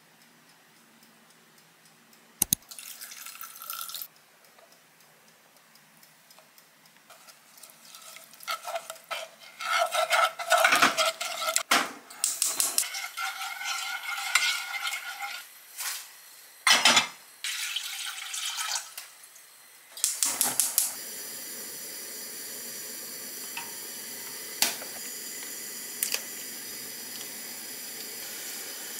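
Cooking sounds: a utensil stirring and knocking against a saucepan, with pots and utensils clattering irregularly. About two-thirds of the way through, a steady hiss sets in and holds.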